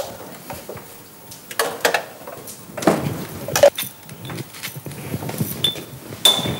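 Light clinks and knocks of a spoon against a glass and a china plate, then a hand pepper mill grinding. Near the end there are two short clinks with a brief ringing high tone.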